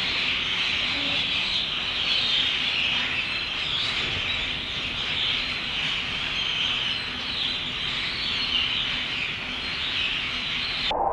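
A large flock of European starlings chattering and whistling together without a break. The sound cuts off abruptly near the end.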